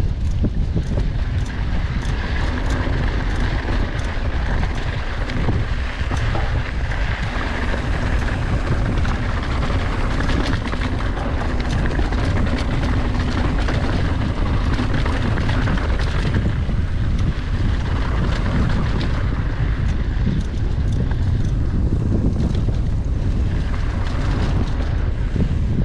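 Steady wind rush on a GoPro action camera's microphone as a mountain bike rolls along dirt singletrack, with tyre noise on the trail and many small clicks and rattles from the bike.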